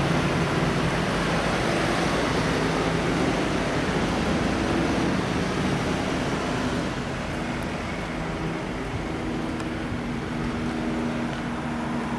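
Police vehicles of a convoy driving past on a street: a steady rumble of engines and tyres, easing off a little past the middle.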